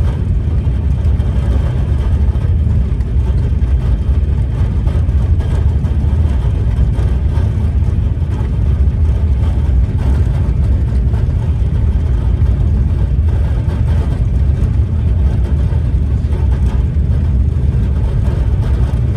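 A TGV Réseau high-speed train running at about 300 km/h: a loud, steady low rumble with a faint whine above it, unchanging throughout.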